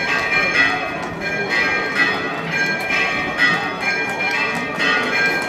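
Bells ringing in a continuous peal, a new stroke about every half second, over the murmur of a crowd.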